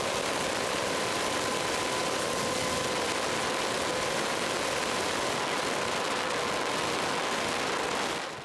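Steady whir and hiss of a camera drone's propellers hovering, with a faint steady whine from its motors. It fades out just before the end.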